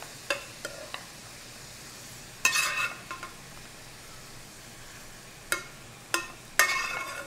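Cooked rice being spooned with a metal slotted spoon into a hot wok of sautéing shrimp: a faint steady sizzle, with a few short knocks of the spoon against the pans and two louder bursts of sizzling and scraping, about two and a half seconds in and near the end, as spoonfuls go into the pan.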